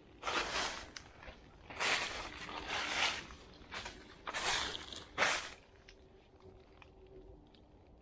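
Footsteps crunching through dry fallen leaves on the forest floor, about five steps that stop after about five and a half seconds.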